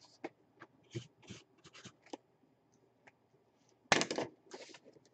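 Cardboard box and packaging handled on a tabletop: a few short scrapes and rustles, with a louder scrape about four seconds in.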